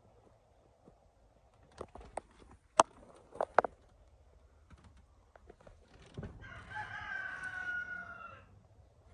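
A few sharp clicks and knocks, the loudest sounds here, then in the second half a rooster crowing once for about two seconds.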